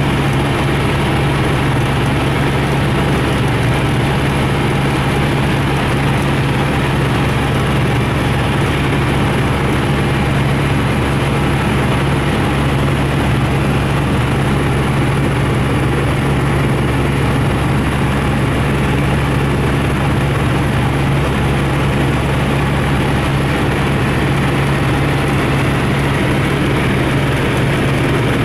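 Motor and propeller of a radio-controlled aircraft running at steady speed, heard from the onboard camera as a constant low drone with rushing air and a faint high whine, with no change in pitch.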